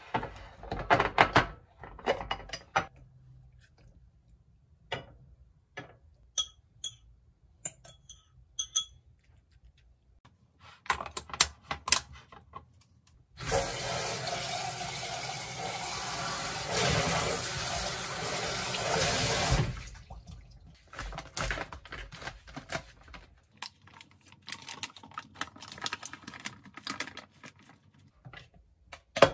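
Clinks and clatter of a glass food container and its snap-lock plastic lid being handled on a kitchen counter. About halfway through, the tap runs into a stainless-steel sink for about six seconds while the container is rinsed out, and the clicking handling sounds go on after it.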